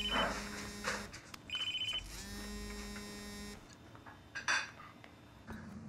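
Mobile phone ringing: a vibrating buzz in pulses about a second long, with short high ringtone beeps between them, plus a brief handling sound about four and a half seconds in.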